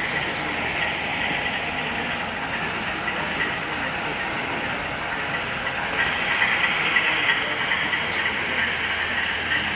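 HO scale model freight train rolling along the layout track: a steady rush of small metal wheels on rail with a thin steady whine, getting louder about six seconds in as the cars pass close by.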